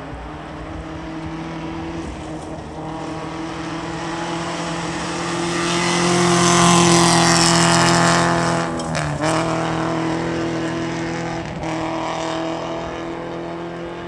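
Subaru Impreza 2.5RS rally car's flat-four engine held at high revs as the car approaches on gravel, passes loudest about seven seconds in, then pulls away. The engine note briefly dips about two seconds after the pass and again a couple of seconds later.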